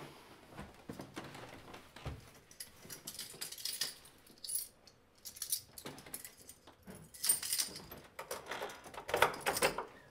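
Keys jangling and clicking at a door lock amid light rustling. The loudest bursts of jingling come about seven and nine seconds in.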